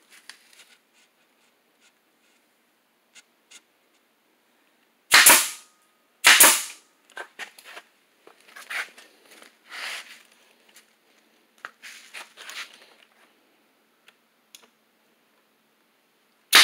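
Pneumatic nail gun firing into wood: two sharp shots about a second apart, then lighter knocks and clatter of boards being handled, and a third shot at the very end.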